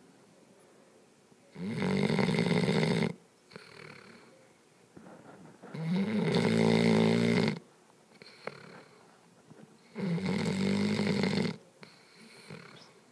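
Puppy snoring loud: three long snores about four seconds apart, each about a second and a half, with faint breathing between them.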